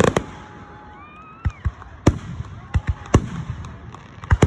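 Fireworks going off at the grand finale of a display: a string of sharp bangs at uneven intervals, a few in quick pairs.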